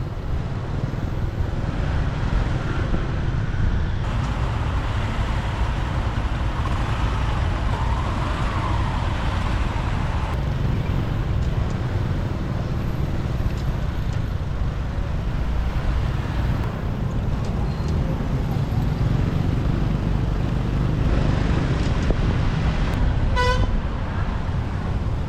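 Street traffic heard while riding a motorbike: a steady low engine and road rumble, with one short vehicle horn toot near the end.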